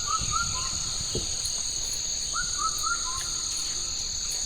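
A bird repeating a short phrase of about four notes stepping down in pitch, once near the start and again about halfway through, over a steady high-pitched drone of insects.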